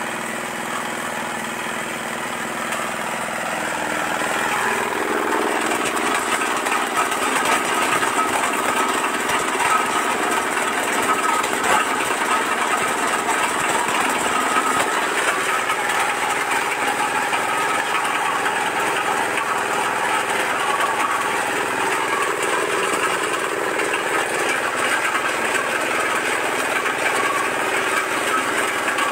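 Areca nut cracking machine running, driven by a small single-cylinder engine, with a dense, steady clatter of nuts being cracked and falling through. It grows louder about four seconds in as the machine takes on its load of nuts.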